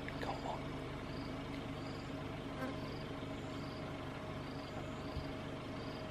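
An insect chirping in an even rhythm, about one and a half high chirps a second, over a steady low hum.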